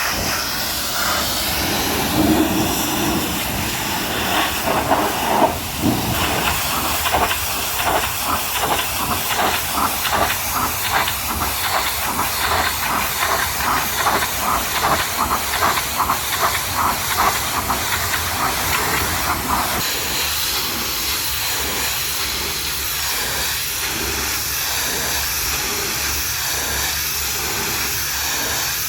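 High-pressure washer spray hissing steadily against a truck's mud-covered body, pulsing about twice a second through the middle stretch.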